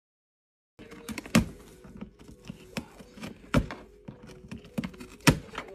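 Cardboard knocking and scratching as a cat claws and pushes at a cardboard cat house. Starting about a second in, there are sharp knocks every second or two with lighter taps and scratches between them.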